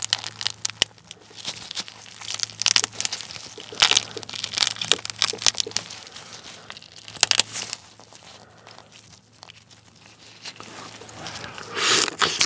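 Gloved hands squeezing a soy-marinated raw flower crab (ganjang-gejang), giving irregular crackling of shell and wet squelching of meat and roe, with the disposable gloves crinkling. Near the end comes a louder run of crunching as the crab is bitten into.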